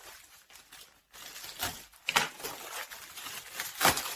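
Packaging rustling and crinkling as it is handled, with two sharper snaps or knocks, one about two seconds in and one near the end.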